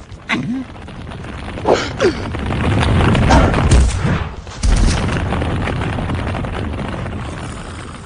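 Cartoon sound effect of a huge boulder rumbling as it rolls down a grassy slope. The rumble builds to a heavy crash about four and a half seconds in, then a long rumble slowly fades. A cartoon polar bear gives short alarmed yelps in the first few seconds.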